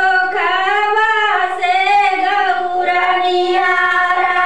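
A high female voice singing a Shiva bhajan in long, held notes with occasional bends in pitch.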